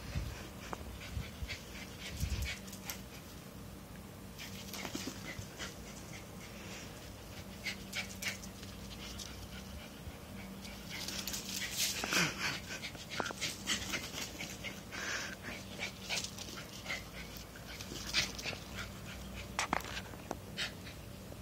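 Dog panting, with scattered sharp clicks and a brief falling whimper about twelve seconds in.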